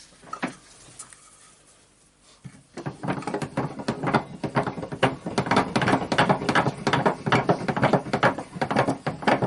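Metal hand tools clicking and scraping against the metal parts of an orbital sander's motor while prying at the armature's ball bearing. One knock comes about half a second in, then a fast, irregular run of clicks starts about two and a half seconds in and keeps going.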